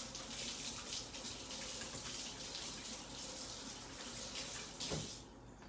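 Kitchen sink faucet running in a steady hiss while hands are washed under it; the water shuts off about five seconds in.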